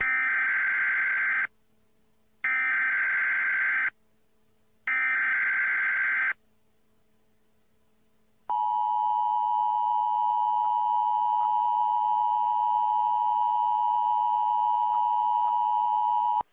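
Emergency Alert System tones opening a tornado warning. Three short bursts of SAME header data, each about a second and a half, are followed about eight and a half seconds in by the steady two-tone attention signal, held for about eight seconds.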